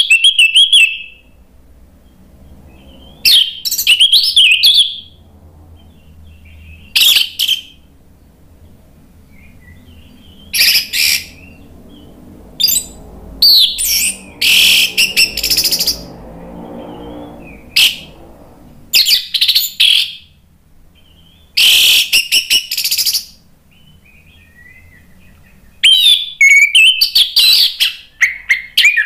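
Caged orange-headed thrush singing loudly in full song: about nine varied, rapid phrases, each about a second long, with pauses of one to three seconds between them.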